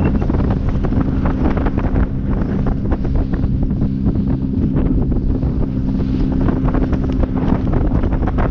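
Wind buffeting the microphone over the steady drone of a fishing boat's motor running.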